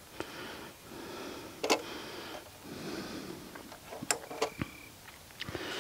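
A man breathing heavily in and out through the nose close to a clip-on microphone, about one breath a second, with two sharp clicks, one about a second and a half in and one about four seconds in.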